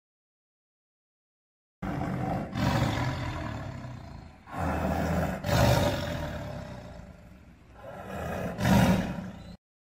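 A large animal roaring: a series of deep, rough roars that swell and fade, starting after nearly two seconds of silence and cutting off just before the end.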